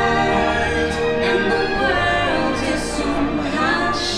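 Orchestral show music with a choir singing long, held notes.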